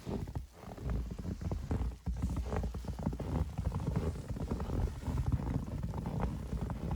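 Footsteps crunching through fresh powdery snow, over a steady low rumble of wind buffeting the microphone.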